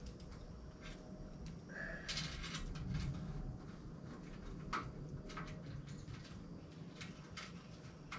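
Scattered light clicks and taps of hands working a small metal patch against a rusty bicycle rear fender, with a brief squeak about two seconds in.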